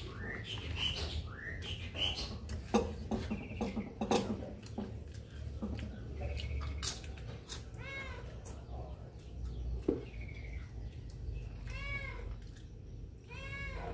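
A cat meowing several times, short arched calls about eight, twelve and thirteen and a half seconds in, with scattered light clicks and taps of food being handled at the table.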